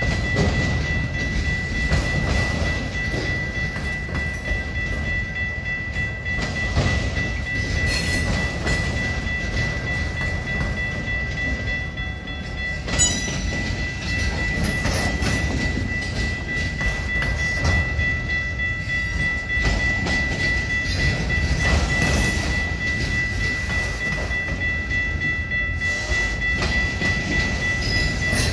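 Multilevel autorack freight cars rolling past, with a steady rumble of steel wheels on rail and occasional clacks. A steady high-pitched ring runs through it, and short high wheel squeals come about halfway through and again at the end.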